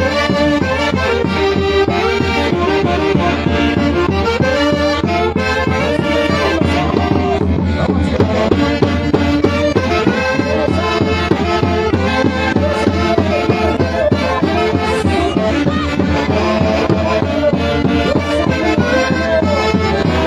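Instrumental music from a Peruvian folk orchestra: a melody moving over a steady, even beat, with no breaks.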